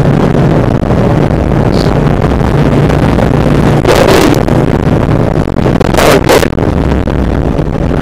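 Rally-prepared Subaru Impreza with a WRX turbocharged flat-four running hard on a gravel stage, heard from inside the stripped cabin: a steady engine drone under loud gravel and road noise. The engine note drops about three and a half seconds in, and there are two louder bursts of gravel noise about four and six seconds in.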